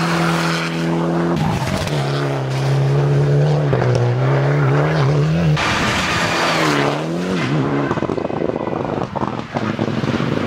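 Mitsubishi Lancer Evolution X rally car's turbocharged four-cylinder engine at full throttle, passing at speed: revs holding high, dipping at gear changes and climbing again. A loud burst of rushing noise comes about halfway through, then the engine note falls away and fades.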